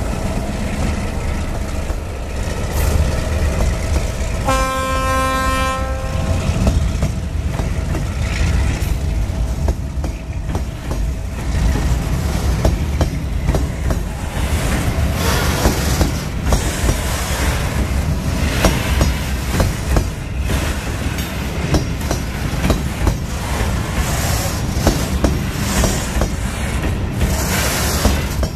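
Loaded freight train hauled by ALCo RSD-16 and EMD G-12 diesel locomotives passing close by with a low diesel rumble. One horn blast of about two seconds sounds about five seconds in. After that the loaded freight cars roll past, wheels clicking over the rail joints.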